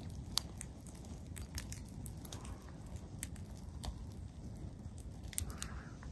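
Campfire crackling: irregular sharp pops and snaps over a low rumble.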